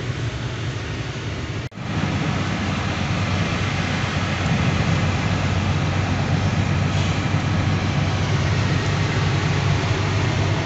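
Steady low drone of a heavy truck's diesel engine and road noise, heard from inside the moving cab. The sound cuts out for a moment about two seconds in, then carries on a little louder.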